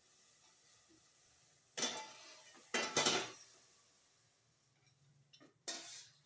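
Stainless steel pots and bowls clinking and knocking together as they are handled, in a few separate clatters, the loudest pair about three seconds in and another near the end.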